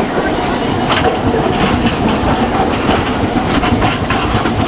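Hiroshima Electric Railway 800-series tram no. 802 rolling past close by, a steady rumble of the car running on its rails with irregular clicks from the wheels on the track.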